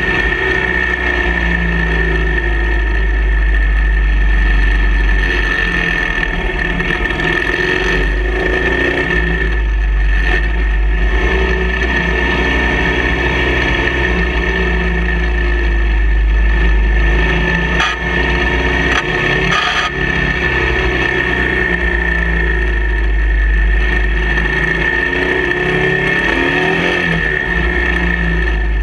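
Motorcycle engine running while riding a winding road, its pitch rising and falling through the curves, under heavy wind rumble on the microphone. A steady high whine sits over it throughout.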